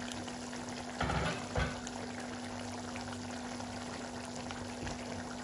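Tomato and minced-meat sauce simmering in an open pot, a steady bubbling over a low steady hum. Two soft knocks come about a second in.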